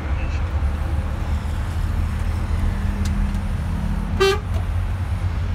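Steady low engine rumble from inside a moving vehicle's cabin, with one short vehicle horn toot about four seconds in.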